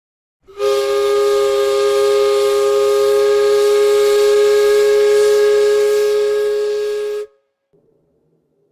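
Ship's steam whistle blowing one long, steady blast of about seven seconds, starting about half a second in. Two strong notes sound together over a hiss of steam, and the blast cuts off abruptly.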